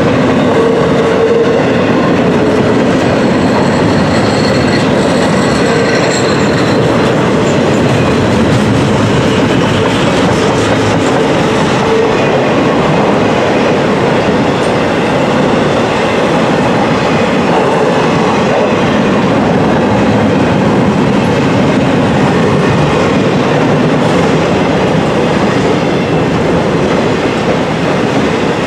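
Freight train of intermodal trailer cars rolling steadily past, a loud continuous rumble and clatter of steel wheels on the rails, with faint wheel squeal in the first several seconds.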